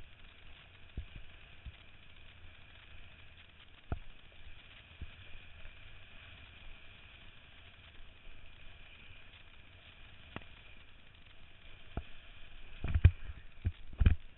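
Kiteboard riding over chop: a steady rush of wind and water with occasional thuds as the board slaps the waves, several heavier slaps close together near the end.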